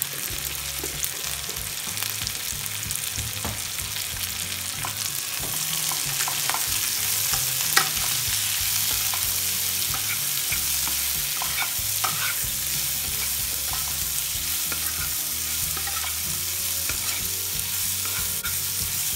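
Onion, capsicum and green chilli sizzling in hot oil in a kadai as they are stir-fried with a wooden spatula, with scraping and scattered light taps of the spatula on the pan. The sizzle grows louder about six seconds in, and one tap near the middle stands out.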